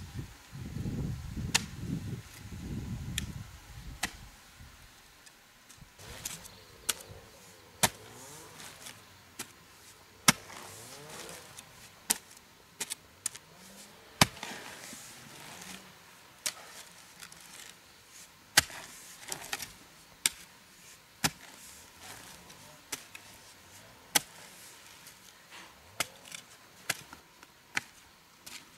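A hoe chopping into soil in repeated sharp strikes, about one every second or so at an uneven pace. A low rumble sounds under the first few strikes and dies away about three seconds in.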